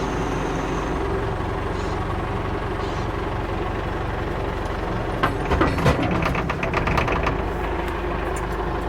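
Tractor-mounted backhoe's engine running steadily, with a cluster of clanks and rattles about five to seven seconds in as the backhoe starts working.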